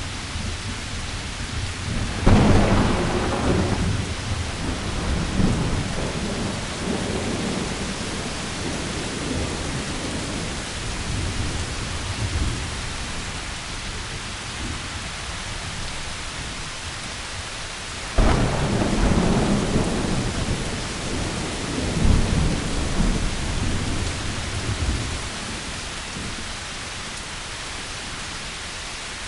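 Thunderstorm: steady rain falling throughout, with two thunderclaps. The first breaks suddenly about two seconds in and rumbles off over a few seconds; the second cracks around eighteen seconds in and rolls on with a second swell for about seven seconds.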